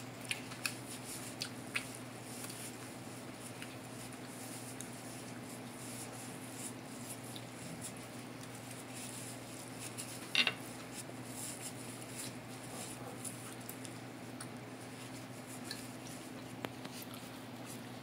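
Close-up chewing and mouth sounds of someone eating pizza, with scattered small clicks and one sharper click about ten seconds in, over a steady low hum.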